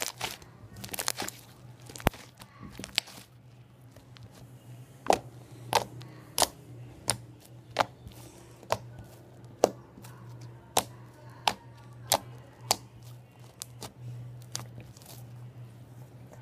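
Slightly sticky homemade slime being pressed and pulled, giving a series of sharp pops and clicks, about one every two-thirds of a second through the middle stretch, over a steady low hum.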